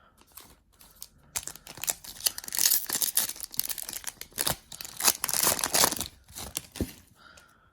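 A foil trading-card pack wrapper being torn open and crinkled: a dense crackling with sharp crackles, starting about a second and a half in and dying away about six and a half seconds in.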